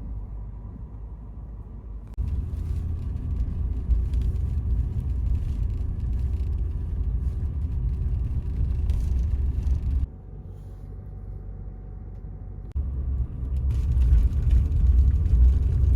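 Car driving, heard as a steady low rumble of engine and road noise. It drops abruptly about ten seconds in and comes back up about three seconds later.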